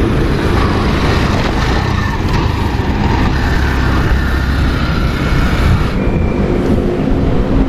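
Wind buffeting the microphone with road rumble while riding a bicycle, a loud, steady, gusting low rumble.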